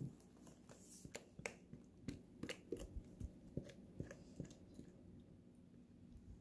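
Silicone spatula scraping a thick cream-cheese and ricotta berry mixture out of a glass bowl into a ceramic baking dish: faint wet squelches with light clicks and taps, a few a second, thinning out near the end.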